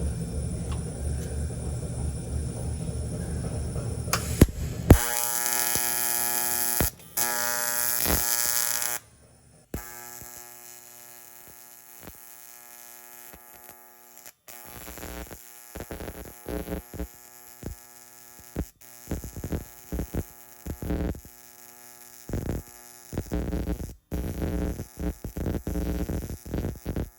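AC TIG welding arc on aluminium, buzzing with a steady electric hum. There is a low rumble for the first few seconds, then one longer arc of about four seconds, then many short, irregular on-off bursts of the same buzz.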